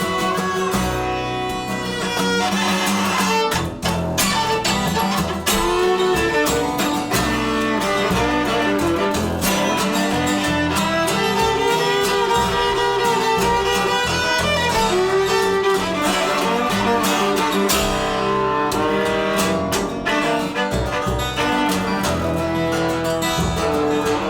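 Live band playing an instrumental break: a viola carries a sliding melody over strummed acoustic guitar and bass.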